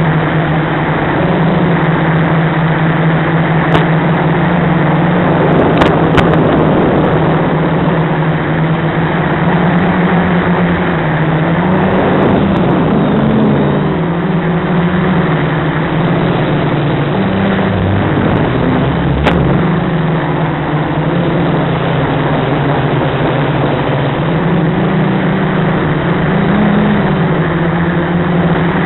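Quadcopter's SunnySky brushless motors and propellers droning in flight over a steady hiss. The pitch wavers up and down with the throttle, and a few sharp clicks come through.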